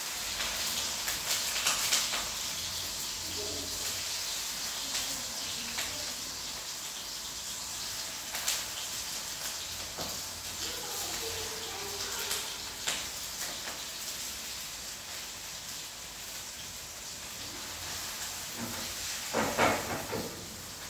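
Food sizzling in hot oil in a frying pan on a gas stove, loudest in the first few seconds and then easing, with scattered clicks of chopsticks against the pan. A brief louder clatter comes near the end.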